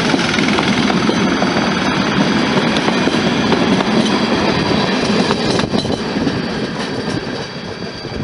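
Passing heritage passenger coaches, including blue Wagons-Lits cars, with a steady loud rumble of their wheels running over the rails. The sound drops away near the end as the last coach goes by and the train moves off.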